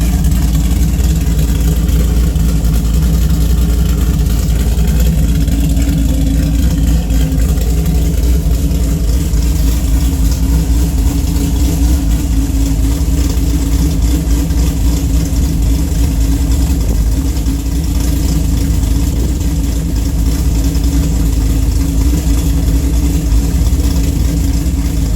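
Car engine with an aftermarket cam (222/226 duration, 112 lobe separation), headers and a cat-back exhaust with J-pipes, idling steadily with a choppy, uneven beat: a really bad misfire.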